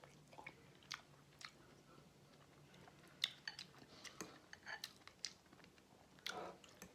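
Faint, close-up chewing of seafood boil, with scattered short smacking clicks of the mouth and lips.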